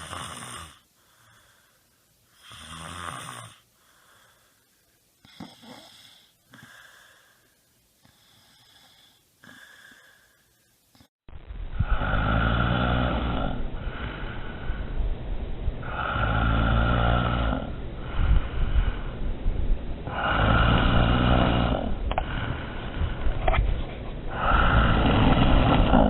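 Snoring in two stretches: first a few short, quiet snores and snorts spread out over about ten seconds, then, after a sudden cut, loud long snores coming about every four seconds.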